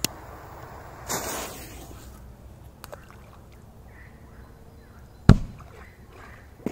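P200 firecracker going off in bog water. A click and a brief hiss as its fuse is lit, then about five seconds in a single loud, short, deep bang.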